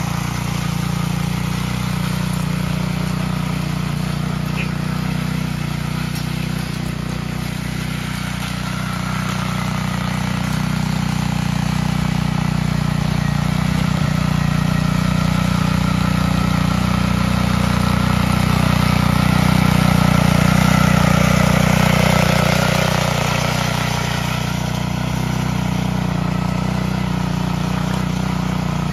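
Small petrol engine of a Kubota mini cultivator running steadily under load as its rotary tines till the soil, growing louder about two-thirds of the way through.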